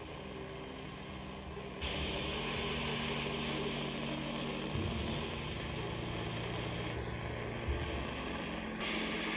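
Gas torch flame hissing steadily as it heats silver to flow solder into cracks, growing louder about two seconds in and shifting in level near the end. Soft background music runs underneath.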